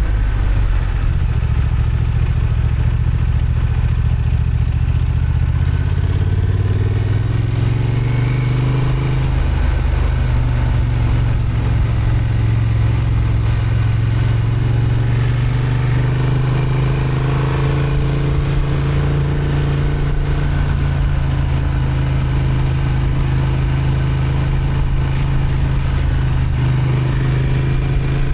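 Honda XL750 Transalp's 755 cc parallel-twin engine, restricted to 35 kW, running under load on a climb. It rises in pitch as it accelerates from about six to nine seconds in, then holds a fairly steady note.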